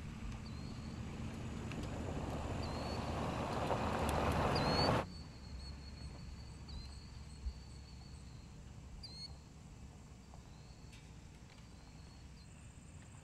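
Ford Super Duty pickup with a 6.7 L Power Stroke V8 turbo-diesel driving by on a dirt track, its engine and tyre noise growing steadily louder for about five seconds and then cutting off suddenly. After that, a quieter outdoor background with birds chirping, a few short rising chirps spread through it.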